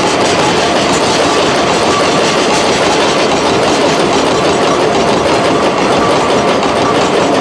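Chichibu Railway train running through a level crossing: a loud, steady rumble of wheels on the rails.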